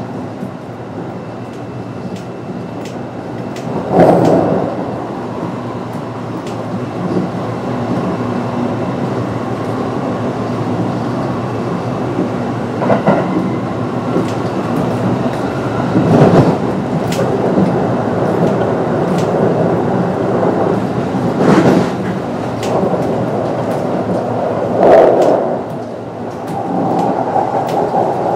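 Kintetsu 9020 series electric train with Mitsubishi IGBT-VVVF, heard from on board while running: a steady rumble of wheels on rail, with a few louder knocks from the track along the way.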